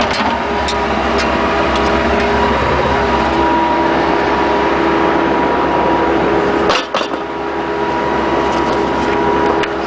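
Bobcat skid-steer loader running steadily under a backhoe attachment, with scattered clicks and knocks and one sharper knock about seven seconds in.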